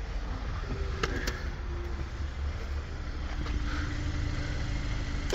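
Car engine idling steadily with a low rumble, and two light clicks about a second in.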